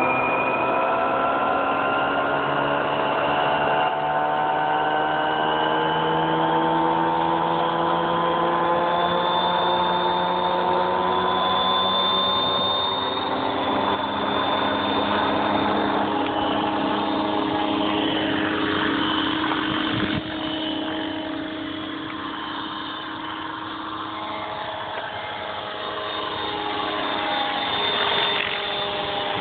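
Electric RC helicopter (Align T-Rex 550) with its motor and rotor whining. The pitch climbs steadily over the first dozen seconds as the rotor spools up, then holds; in the second half the pitch wavers up and down and the sound gets a little quieter.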